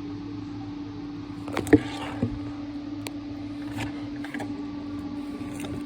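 Refrigerator running with a steady electrical hum, at the back of a fridge the owner says is running very hot. A sharp click comes about a second and a half in, a smaller one just after, and a few faint ticks follow.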